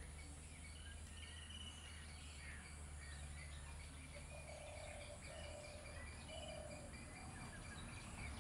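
Outdoor ambience: faint bird chirps over a steady low hum, with a run of four short, lower-pitched calls in a row around the middle.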